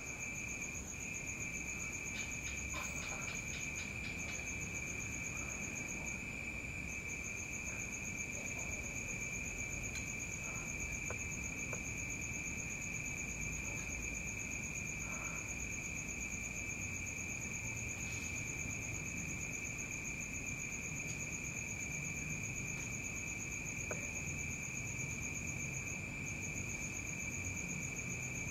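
Crickets trilling continuously at two steady high pitches, over a faint low rumble.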